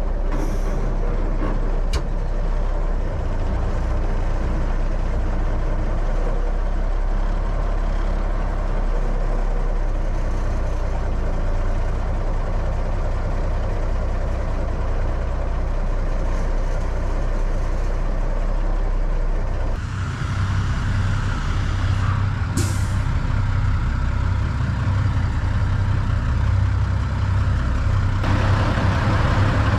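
Heavy 5-ton 6x6 military truck's engine running as the truck drives, with a steady low rumble. About two-thirds through the sound shifts to a deeper, steadier engine note, and a short air-brake hiss follows a few seconds later.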